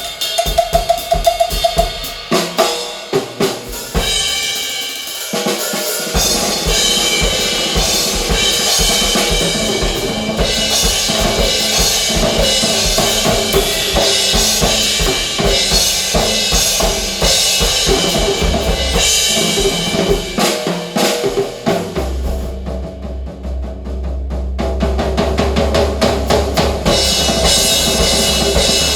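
Percussion-heavy music track played through a hi-fi speaker system with Heil ESS AMT-1 tweeters, midwoofers and two REL S/812 subwoofers: fast drum kit strikes with snare, bass drum and cymbals over pitched music. About two-thirds of the way through, a deep sustained bass note comes in and the highs briefly drop away.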